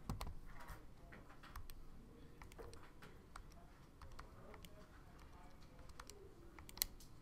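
Faint, irregular clicks of graphing-calculator keys being pressed as the function is keyed in for graphing, with one sharper click near the end.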